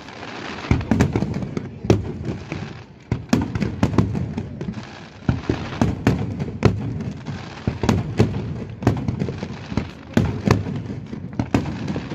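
Aerial firework shells bursting: an irregular series of sharp bangs, often several within a second, over a continuous low rumble of reports.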